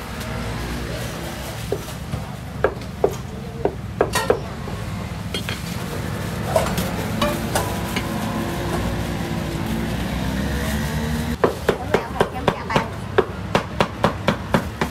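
Cleaver chopping on a thick wooden chopping block, cutting up poached salty chicken: a few scattered knocks at first, then, about three-quarters of the way in, a quick steady run of sharp chops, about three a second.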